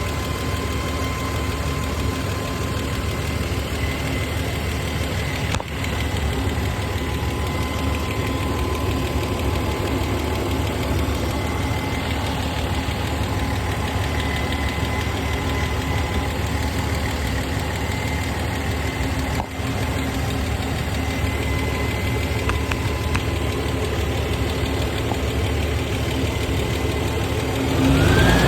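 Toyota 1FZ-FE 4.5-litre straight-six engine idling steadily with a ticking noise; near the end it is revved and the pitch rises.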